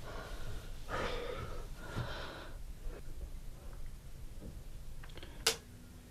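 A person breathing heavily, three loud breaths in the first couple of seconds, then fainter. Near the end a single sharp click, followed by a low steady hum.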